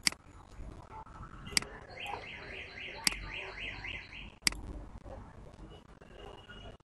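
Computer mouse clicks, four sharp single clicks about a second and a half apart. Between about two and four seconds in, a rapid run of repeated high chirps sounds in the background.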